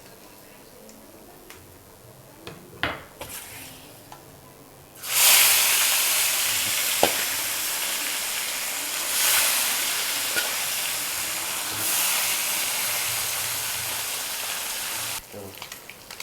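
Small parse (mullet) fish frying in hot mustard oil in a kadai: after a few light clatters, a loud sizzle starts suddenly about five seconds in, swells twice, and cuts off abruptly about a second before the end.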